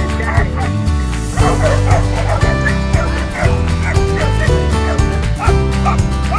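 Dogs yipping and whining in short repeated calls over background music.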